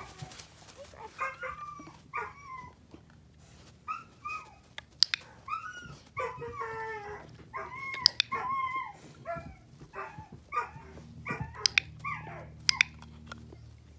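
A four-month-old puppy whining and yipping in many short, high calls that bend up and down in pitch, with a few sharp clicks in the second half.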